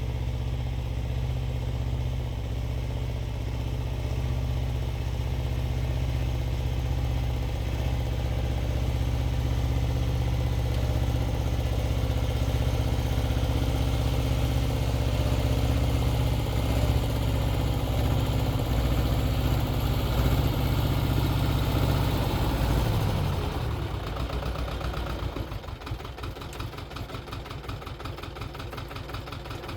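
Xingtai 220 mini tractor's diesel engine running steadily under load while driving a rotary tiller. About 23 seconds in, the engine note drops to a lower, evenly pulsing beat like an idle.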